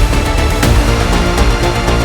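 Background music with a steady beat and sustained synth-like notes.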